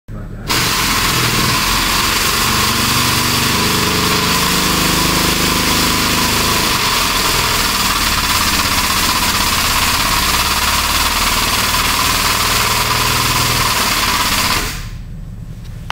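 ProJack scissor jack running as it raises the rear of a dragster: a loud steady hiss with a low hum beneath, starting just after the beginning and cutting off abruptly near the end once the lift is up.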